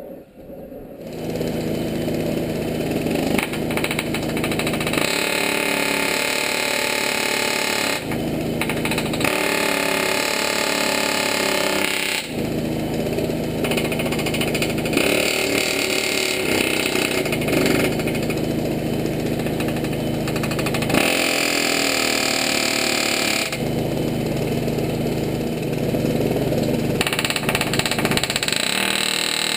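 Pneumatic air hammer running against a steel truck frame, driving out the rivets of a front spring hanger. It starts about a second in and keeps up a steady rapid rattle, changing in tone every few seconds as the tool is repositioned.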